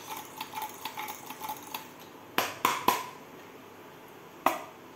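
Metal kitchen utensils clinking against a steel cooking pot: light taps in the first two seconds, then three sharp clinks in quick succession and one more near the end, each ringing briefly.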